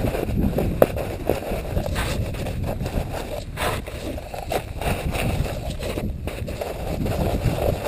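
Snow crunching and scraping as it is scooped with a plastic spoon and gloved hands and packed into a Jetboil cooking cup, a run of short irregular crunches. A low rumble of wind on the microphone runs underneath.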